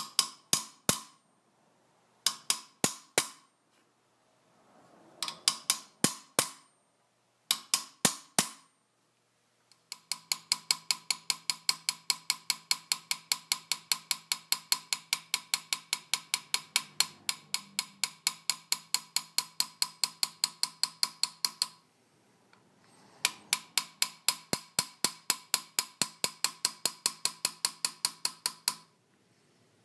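A small hammer tapping a chasing tool along a marked line on a hammered copper vase body held on a steel mandrel stake, each tap ringing metallically. The taps come first in short groups of about four, then in long steady runs of about three taps a second, with a short pause partway through.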